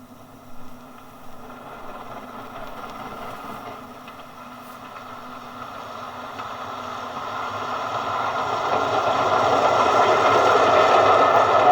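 A train approaching on the railway, growing steadily louder, with a few light knocks near the start.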